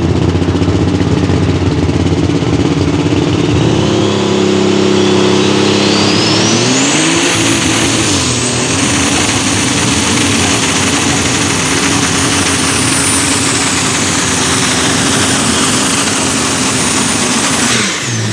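International pulling tractor's turbocharged diesel engine at full throttle pulling the sled. The engine note steps up about four seconds in, a high turbo whine climbs over the next few seconds and then holds steady, and near the end the engine drops off sharply as the pull ends.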